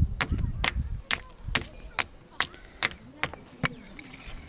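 Steady rhythmic chopping or striking: sharp knocks a little over two a second, evenly spaced.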